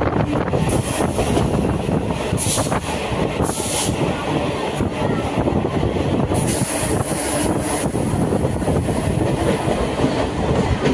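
Electric suburban local train running along the track, heard from inside the coach: a steady rumble with wheel clicks and a few brief high hissing surges.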